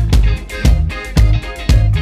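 Background music with a steady beat: strong bass pulses about twice a second under pitched instrument parts.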